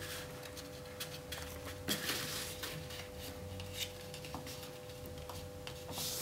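Paper being handled: a letter and photograph moved and smoothed by hand on a wooden table, with scattered light taps and soft rustles. A faint steady hum runs underneath.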